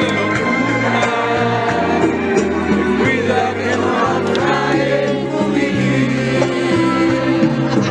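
A song playing: singing over instrumental accompaniment with a moving bass line.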